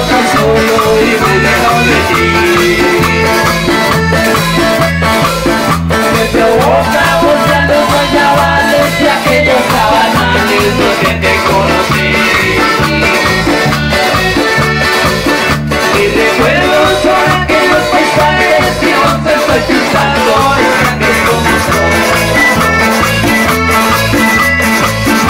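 Live Colombian parrandera dance music, a piano accordion carrying the melody over guitar and a steady bass beat, played loud through a PA system.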